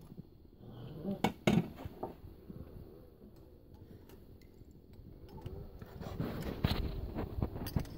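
Clinks and knocks of a steel stone-cladding clip and marble slab being handled and fitted against a wall, with two sharp knocks about a second and a half in and a busier run of clinks near the end.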